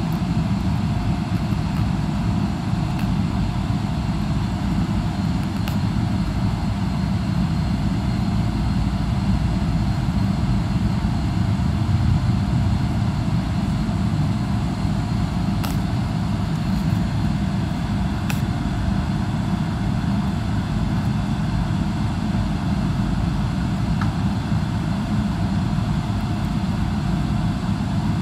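Steady cabin noise inside a Boeing 777-300ER moving slowly back from the gate: an even low rumble with faint steady whining tones above it and a couple of faint clicks.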